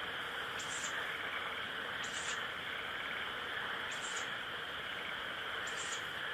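Owl chick giving short hissing 'pishu' calls, four of them spaced about every one and a half to two seconds: the food-begging call of a young owl. A steady chorus of insects runs underneath.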